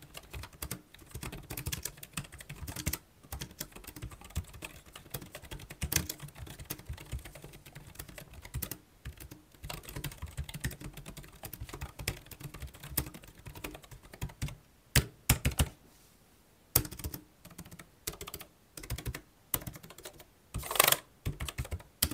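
Typing on a Keychron B Pro ultra-slim scissor-switch keyboard, a quiet soft clatter of key presses. Dense runs of clicks give way to sparser separate taps and short pauses in the last several seconds.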